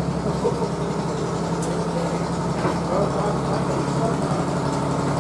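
A steady low drone of an idling engine, with faint voices in the background.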